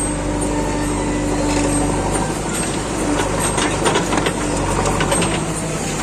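Diesel engines of a backhoe loader and tractors running steadily, with a run of knocks and clatter through the middle.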